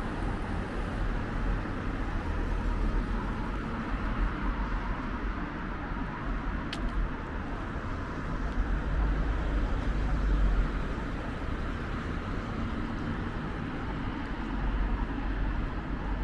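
Road traffic on a city street: a steady low rumble of passing vehicles that swells twice, about nine to ten seconds in and again near the end, with one brief sharp tick about seven seconds in.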